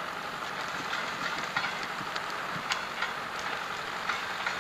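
Tracked crawler loader running and clattering on its steel tracks while it skids a chained log, with a steady engine hum under many irregular metallic clicks and clanks.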